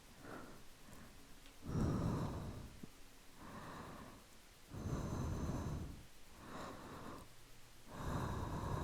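A person breathing slowly and deeply, close to the microphone: three fuller breaths about three seconds apart, each followed by a softer one, in an unhurried in-and-out rhythm.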